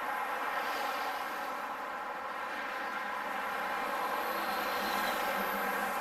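Steady drone of road traffic, an even engine-like hum without any sudden sound.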